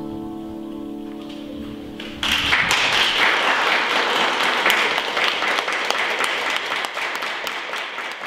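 The last notes of a piano piece hold and fade, then about two seconds in an audience breaks into applause, a dense clatter of hand claps that goes on.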